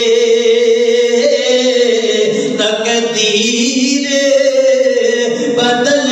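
A man's voice chanting a melodic religious recitation over a microphone, in long held notes that rise and fall slowly.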